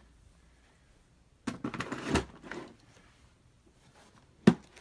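Handling noise in a small room: about a second and a half in, a second of rustling and clattering, then a single sharp knock near the end.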